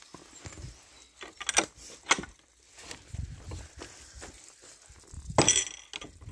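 Footsteps walking on a dirt and grass path, with a few sharp knocks and clicks; the loudest comes about five seconds in.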